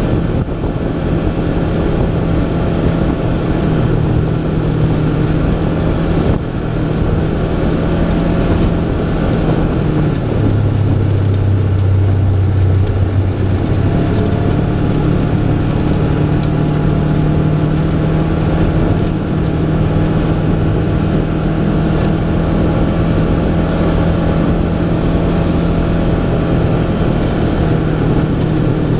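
Off-road vehicle's engine droning steadily as it drives along a dirt and gravel trail, with the rumble of the ride underneath. About a third of the way in the engine note drops lower for a few seconds, then rises back to its earlier pitch.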